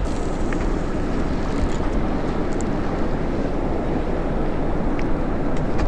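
Wind buffeting the camera microphone on an open boat at sea: a steady, dense rumbling noise, with a few faint ticks.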